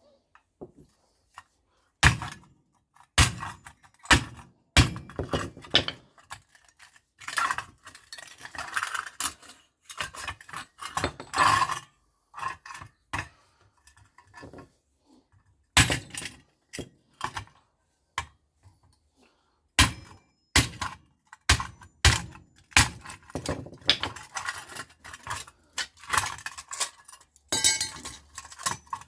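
Metal scrap parts from a microwave being knocked and handled: a string of sharp, uneven knocks with clinking and rattling of loose metal pieces between them.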